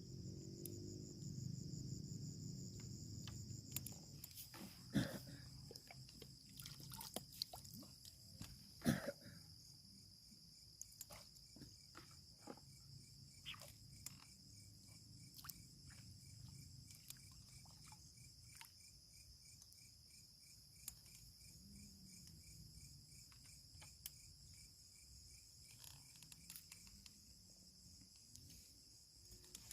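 Insects chirring steadily in high, continuous trills, with a second pulsing trill joining about ten seconds in. A few sharp clicks and knocks, the loudest about five and nine seconds in.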